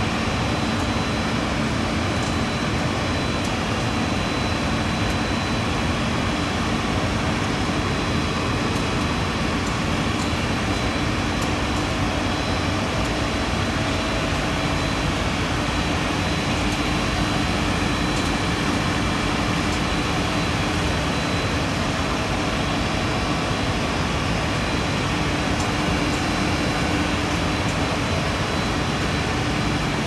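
Rubber extrusion and microwave vulcanization line running: a steady machinery hum with a thin, constant high whine over it.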